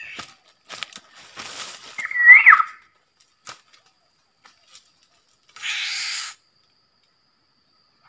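Black-naped oriole (kepodang emas) giving one loud call about two seconds in, a note that rises and then drops. Short bursts of rustling from palm fronds come before and after it.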